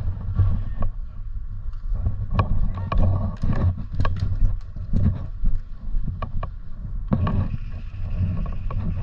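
Steady low rumble of wind and movement on a body-worn microphone, broken by many sharp clicks and knocks scattered through it.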